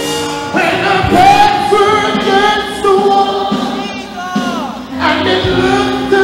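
Church congregation singing a gospel worship song together over instrumental accompaniment, with long held notes that slide between pitches.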